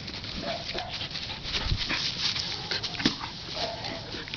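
A dog playing with a plastic ball, making a few short whines amid scuffling and irregular knocks as it mouths and wrestles the ball.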